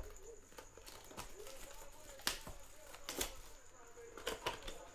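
Trading cards and card packs being handled on a table: scattered light taps and clicks, with a few sharper ones in the second half.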